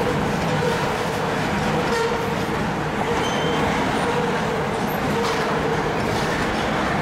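Loaded flatcars of a welded-rail train rolling steadily past, the noise of steel wheels running on the rails, with wind noise on the microphone.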